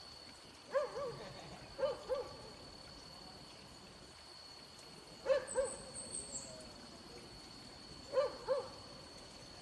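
Hunting dogs barking in quick pairs of short barks, four times a few seconds apart.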